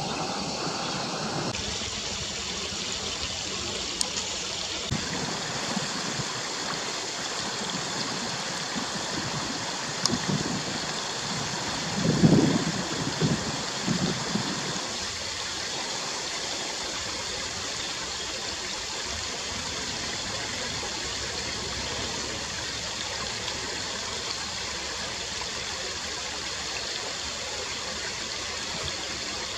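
Creek water running over river stones, a steady rush. A few low thumps come near the middle.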